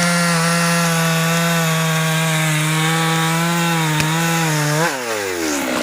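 Husqvarna 390XP two-stroke chainsaw running at high, steady revs while cutting through teak wood. Near the end the throttle is released and the engine note falls sharply toward idle.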